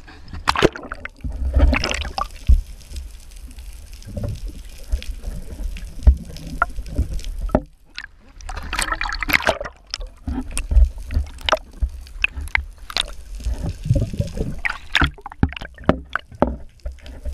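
Water sloshing and gurgling around a camera as it dips below the sea surface and goes underwater, with irregular clicks and knocks throughout.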